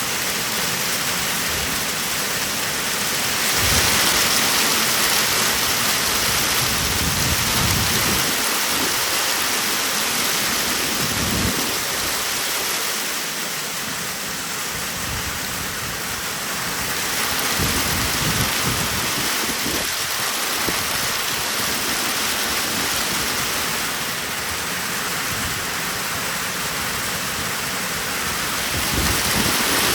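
Heavy rain and hail pelting down in a steady hiss. Several low rumbles rise out of it now and then.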